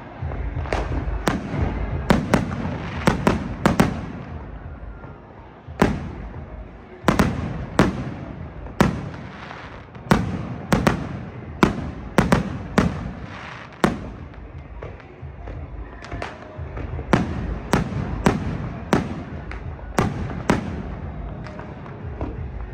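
Fireworks going off continuously: many loud sharp bangs, often several a second in irregular clusters, each with an echoing tail, over a constant crackle and rumble of more distant explosions.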